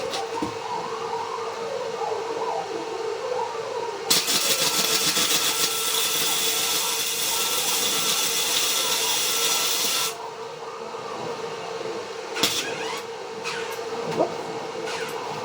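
Arc welder laying a bead: a dense, steady crackle that starts about four seconds in and cuts off abruptly about six seconds later, over a constant hum. A few sharp taps follow near the end.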